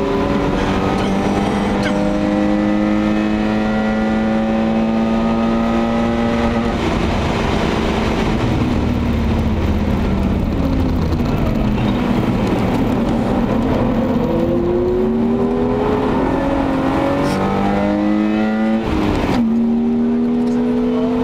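BMW 525i E34's 24-valve straight-six, heard inside the cabin under hard acceleration on track. Its pitch climbs steadily for several seconds, falls away in the middle as the car slows, then climbs again in short pulls broken by two quick gear changes near the end.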